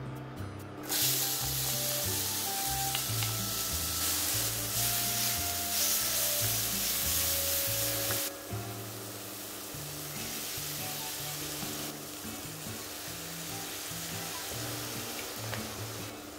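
Pounded chili and garlic hitting hot oil in a steel pan, sizzling loudly from about a second in; just after eight seconds the sizzle drops to a lower steady level as roast pork neck is stir-fried with a wooden spatula. Background music with a low bass line runs underneath.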